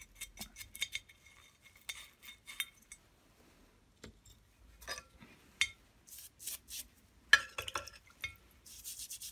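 Metal clutch parts clinking and knocking against a glass bowl of paraffin as they are handled and washed, with a quick run of ringing clinks at first and scattered knocks after. Near the end a brush starts scrubbing.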